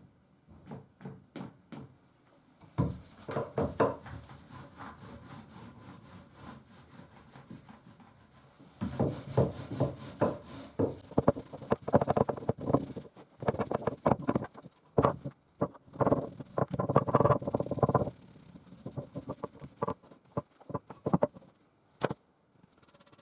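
Quick back-and-forth rubbing strokes of a hand tool on wood, in two spells, the second louder and denser, followed by a few scattered knocks.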